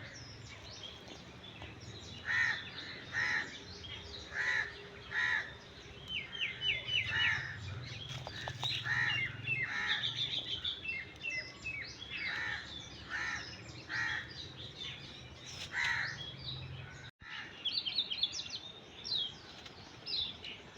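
Wild birds calling: a loud call repeated in pairs about a second apart, with quicker high chirps and trills in between. The sound drops out for a moment about three quarters of the way in.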